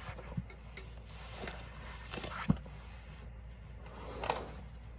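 Handling noises: scattered light clicks and rustling, with one sharp knock about halfway through, as trombone parts and cleaning gear are handled.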